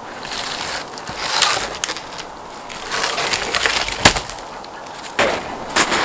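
Dry wood being broken up by hand, cracking and splintering in irregular crunches, with a sharp crack about four seconds in and two more near the end.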